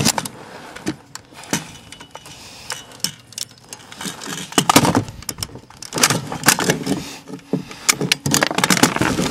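Irregular metallic clicks and clatter of an AK-pattern rifle and its magazine being handled to clear a jam, with a cartridge fed back into the magazine over a wooden bench.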